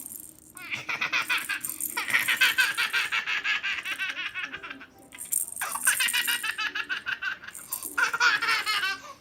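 A baby laughing in long runs of rapid, high giggles, in three stretches with short breaks for breath.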